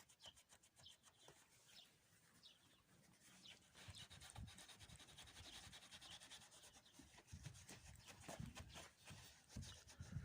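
Faint rubbing of a rag wiping old grease and WD-40 off a car door check strap, with a few light scrapes and ticks.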